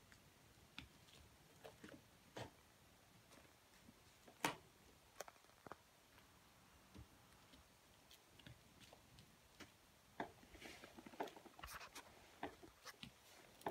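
Faint, scattered taps and scuffs of a kitten batting and pouncing on a toy mouse on a woven rug, with one sharper knock about a third of the way in and a busier run of small taps and rustles near the end.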